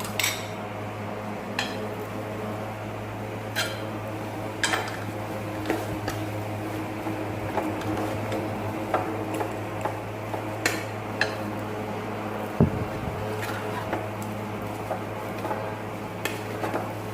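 A cooking utensil scraping and knocking against a pan at irregular intervals while grated chicken is mixed into a mashed potato and onion masala. A steady low hum runs underneath.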